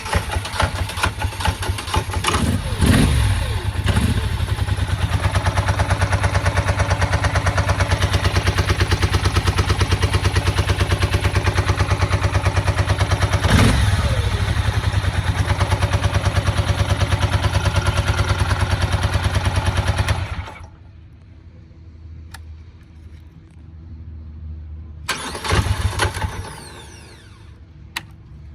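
An engine with a hard-starting and rough-idling problem turning over and running with a fast, even pulse for about twenty seconds, its pitch briefly rising and falling twice, then cutting out abruptly. A few seconds later comes a short second burst of it.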